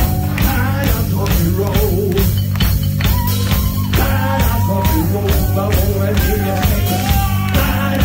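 Live rock band playing a song at full volume: driving drums, distorted guitar and bass, with a singer's voice over them.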